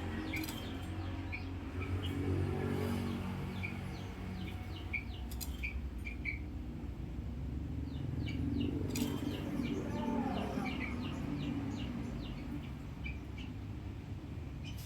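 Bird chirping: short, quickly falling chirps, scattered at first, then in runs of several a second from about the middle on, over a steady low rumble.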